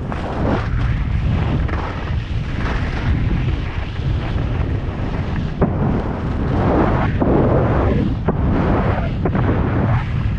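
Wind buffeting the camera microphone as the skier moves fast downhill, a heavy continuous rumble, with the hiss of skis on snow swelling and fading every second or two through the turns.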